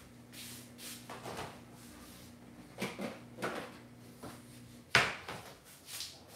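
Kitchen knocks and clatter: a few soft knocks, then one sharp bang about five seconds in. A low steady hum stops just before the bang.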